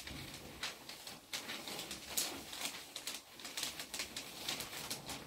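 Two peeled crayons scratching on paper taped to a wall, one in each hand at once: an irregular run of short strokes.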